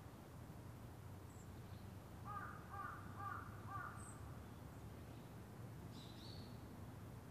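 A crow cawing four times in quick succession, about half a second apart, over a quiet steady background with a few faint high bird chirps.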